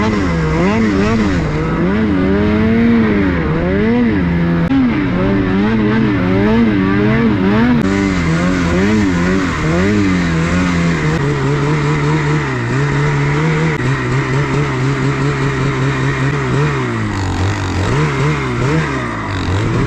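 Snowmobile engine running under load in deep snow, its pitch rising and falling repeatedly with the throttle for the first half, then holding lower and steadier.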